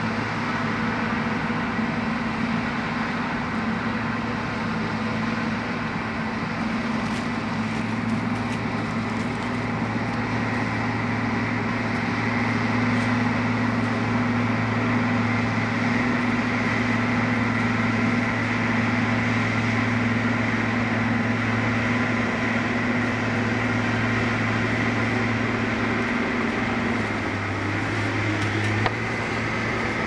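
Crawler bulldozer's diesel engine running steadily as the dozer shoves dirt. Near the end the engine note shifts and there is a single brief knock.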